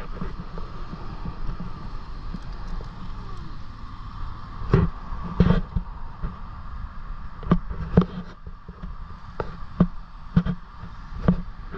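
Wind buffeting the microphone as a steady low rumble, with a faint steady tone above it. Several sharp, irregular thumps come from about five seconds in, often in pairs.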